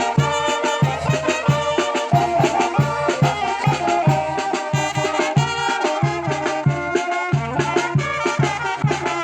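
Mexican brass band (banda) playing a chilena: brass melody over low bass notes pulsing on a steady, bouncing beat.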